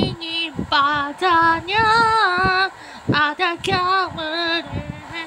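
A high-pitched voice singing a wavering melody in several phrases of held notes with short breaks, the longest note near the middle.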